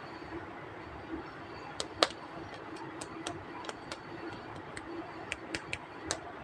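A series of sharp, light clicks and taps of small hard plastic pieces being handled, about a dozen in all, the loudest about two seconds in, over a faint steady background hum.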